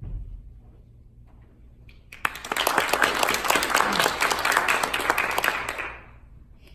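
Audience applauding: a few seconds of steady clapping from a small crowd that starts about two seconds in and dies away near the end, after a short low thump at the start.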